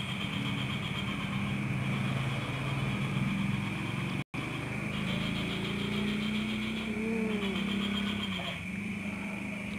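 A steady low engine hum with a constant high-pitched tone above it.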